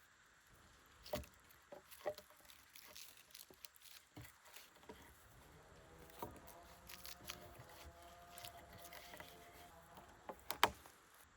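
Faint, scattered light knocks and clicks, with a faint steady tone through the middle few seconds and a sharp double knock near the end.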